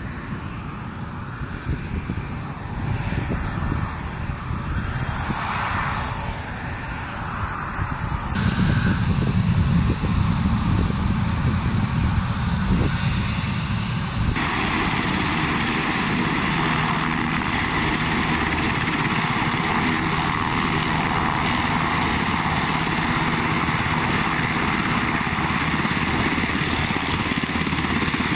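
Turbofan engines of A-10 Thunderbolt II jets: first one aircraft passing low over the runway, its whine sliding in pitch. Then come sudden changes to heavier, steady engine noise, at about 8 seconds and again at about 14 seconds, as the jets run on the runway.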